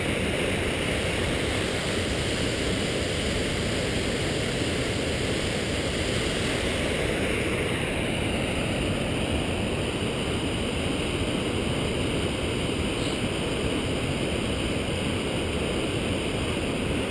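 Steady rush of a waterfall: an even, unbroken noise.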